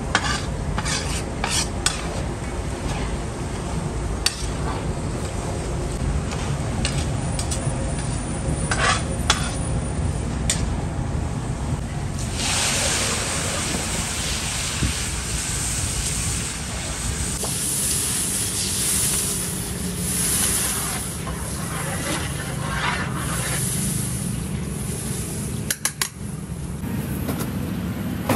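Sliced onions frying in oil in a large steel pulao cauldron, stirred with a metal ladle that clicks and scrapes against the pot. About twelve seconds in, warm water poured into the hot oil sets off a loud hissing sizzle that carries on, over a steady low rumble.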